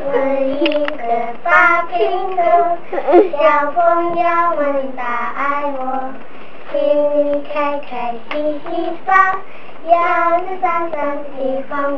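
A small group of young girls singing a song together on one melody line, in short phrases of held notes with brief breaks between them.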